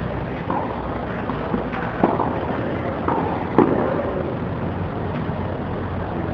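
Tennis balls struck by rackets in a doubles rally: several sharp pops, the loudest about two seconds and three and a half seconds in, over a steady background noise.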